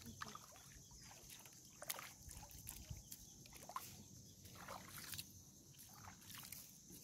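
Faint footsteps wading through shallow water and wet mud, with soft splashes and scattered irregular clicks.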